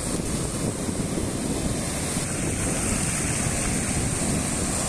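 Sea surf breaking and washing up the beach in a steady rush, with wind buffeting the microphone.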